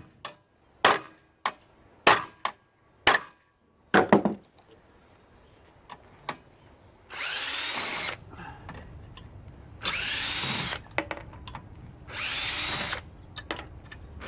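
About eight sharp hammer whacks in the first four seconds, striking a stubborn screw to jolt it loose. These are followed by three short bursts of a power drill/driver, each spinning up with a rising whine, backing out the screws that hold the scooter's motor.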